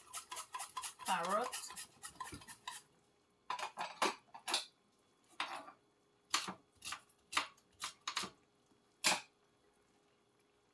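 Metal utensils clinking and knocking against a cooking pot: a string of about a dozen separate, irregularly spaced clinks, stopping a little over nine seconds in.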